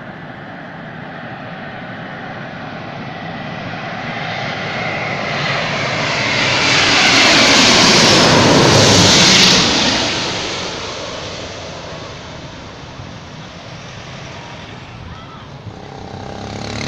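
Airbus A350-900 jet airliner passing low overhead on landing approach with its gear down. The roar of its Rolls-Royce Trent XWB engines builds to a loud peak about seven to nine seconds in, then fades with a falling pitch as it passes.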